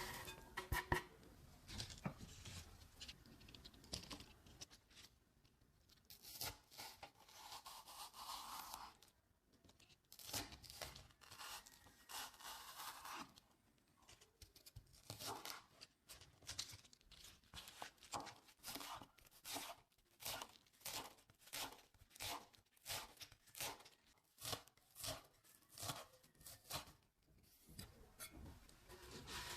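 Raw vegetables being shredded by hand: crisp scraping and tearing strokes, irregular at first, then settling into a steady rhythm of about two strokes a second.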